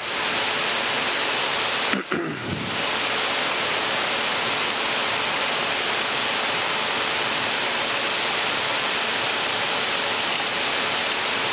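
Steady rushing hiss of cockpit noise in an Embraer Legacy 600 jet descending through rain. About two seconds in, it dips briefly and a short falling tone sounds.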